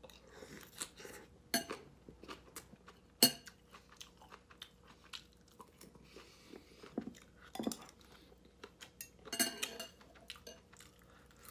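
Close-up chewing of mouthfuls of soy-sauce egg rice and Vienna sausage, with a metal spoon and chopsticks clicking against the bowl a few times, most sharply once about a second and a half in, again about three seconds in, and in a short cluster near the end.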